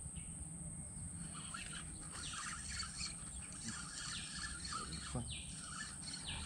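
Wild birds calling: a short falling call repeated several times, with quick twittering chirps through the middle, over a steady high-pitched hiss.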